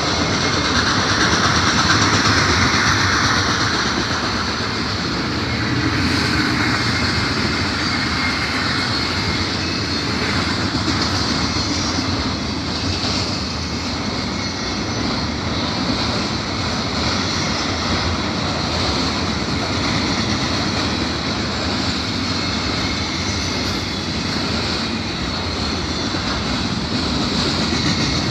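Double-stack container freight train rolling past: a steady rumble with the clatter of its wheels over the rail joints.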